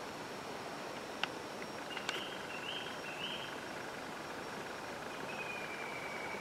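Small birds calling over a steady hiss: three short rising chirps about two seconds in, then a longer, slightly falling whistle near the end. A sharp click sounds about a second in, with a smaller one just before the chirps.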